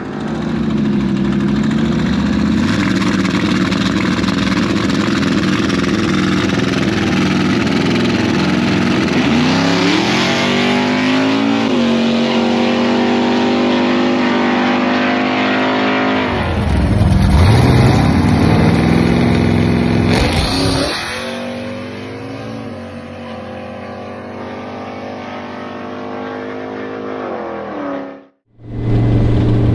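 Turbocharged 5.3-litre LS V8 in a 1993 Chevy 1500 pickup under acceleration. The engine pitch climbs and drops back as it goes through gears, with the loudest, hardest pull about two-thirds of the way in. It then settles to a steadier, quieter run and cuts off abruptly near the end.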